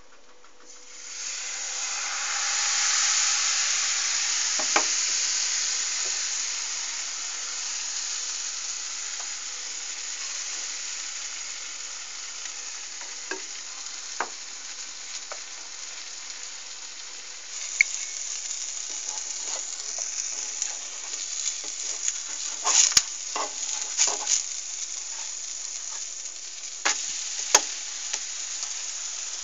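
Buckwheat crepe batter hits a hot frying pan and sizzles. The hiss swells about a second in, then slowly eases into a steady frying sizzle. Near the end a spatula scrapes and clicks against the pan, loosening the crepe.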